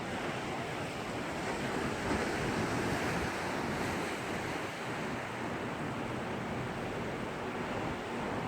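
Sea waves surging against the shore, a continuous rushing wash that swells a little a couple of seconds in.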